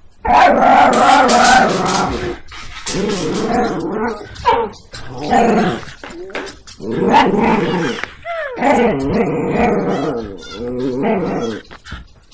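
A dog growling in play while tugging at a stick held in its jaws. The growls come in long runs of a second or two, broken by short pauses.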